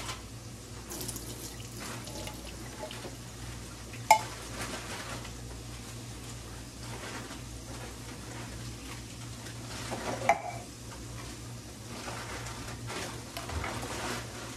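Black olives being handled in a wire-mesh strainer over a stainless steel sink, with light clatter and two sharp metallic clinks, about four seconds in and about ten seconds in. A low steady hum runs underneath.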